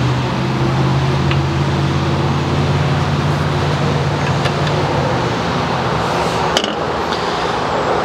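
Steady engine noise over a loud, even rush, with a low hum that fades out about five and a half seconds in.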